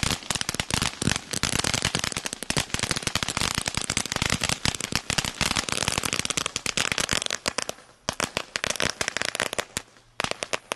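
Black Cat 1.21 Gigawatts ground firework spraying sparks with a dense, continuous crackle. The crackling thins to scattered pops about eight seconds in and dies away near the end as the firework burns out.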